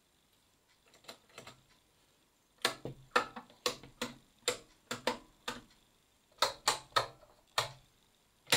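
Lever switches on a Technics SU-Z2 amplifier's front panel flipped back and forth by hand, a string of sharp mechanical clicks. Two faint clicks about a second in, then about a dozen louder ones at an uneven pace.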